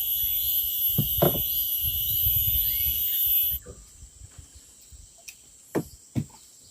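Cicadas buzzing in a loud, steady high-pitched drone that cuts off suddenly about halfway through, followed by a few sharp knocks, the two loudest near the end.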